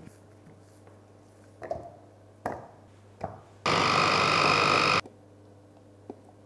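Electric mini chopper motor whirring for about a second and a half as it purées bananas, starting and stopping abruptly. A few soft knocks of handling come before it.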